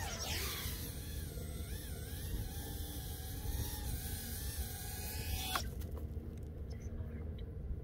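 FPV quadcopter motors whining, their pitch wavering up and down with the throttle, then stopping abruptly with a click about five and a half seconds in. A steady low rumble lies underneath.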